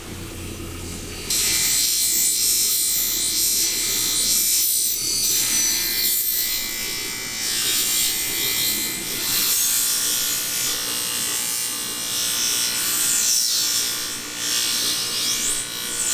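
Electric bench grinder running with the steel blade of a long tuna knife held against its fine wheel: a loud, steady hiss of metal on the wheel over the motor's hum, with small swells as the blade is worked along. It starts abruptly about a second in, after a quieter motor hum.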